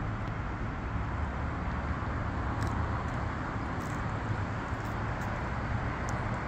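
Steady urban street ambience: road traffic making a continuous low rumble, with a few short, faint high sounds in the second half.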